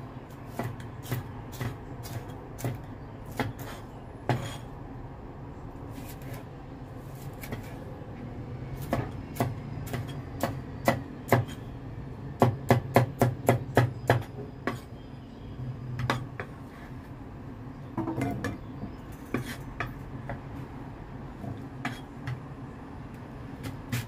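Chinese cleaver chopping bell peppers on a wooden chopping board: sharp knocks of the blade on the board, spaced out at first, then a quick run of about six a second in the middle. A low steady hum lies underneath.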